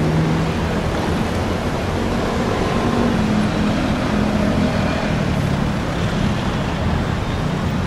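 Steady city road traffic: car and bus engines running and passing, with a low engine hum over a constant rumble.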